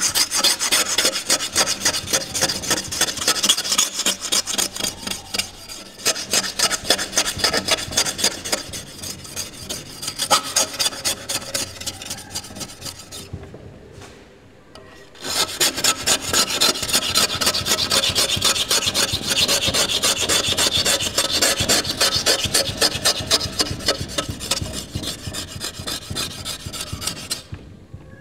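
Rapid, rhythmic scraping strokes in a fast, steady stream, pausing for a moment about halfway and stopping shortly before the end.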